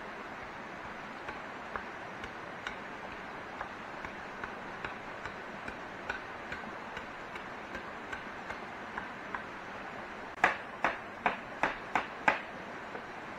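Light, regular taps about twice a second over a steady hiss, then six sharp knocks in quick succession, a little under half a second apart, about two-thirds of the way through.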